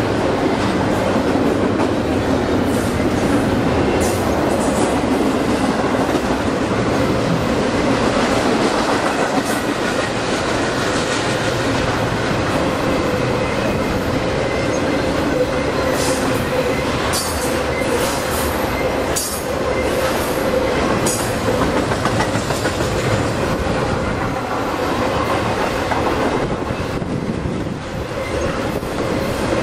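Intermodal freight train cars rolling past: a steady loud rumble of steel wheels on rail, with a thin steady squeal running through it. About halfway through comes a run of sharp clicks as the wheels pass over rail joints.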